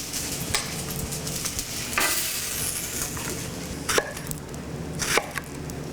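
Peaches frying in a pan, a steady sizzle, as they are stirred and moved about. About four sharp knocks of a utensil against the pan come at irregular moments.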